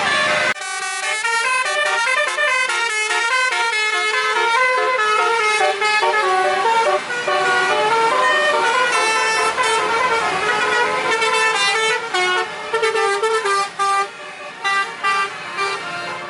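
Bus telolet horn: a multi-tone horn playing quick melodies of short stepped notes, starting suddenly about half a second in.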